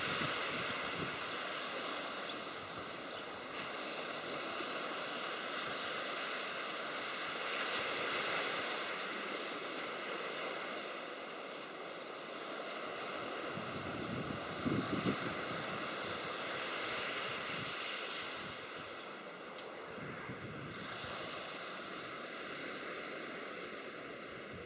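Wind rushing over the microphone, with a faint steady drone from a distant Class 47 diesel locomotive hauling its train of coaches.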